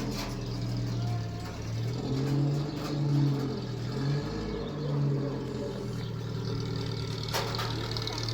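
An engine running steadily, its pitch rising and falling slightly now and then.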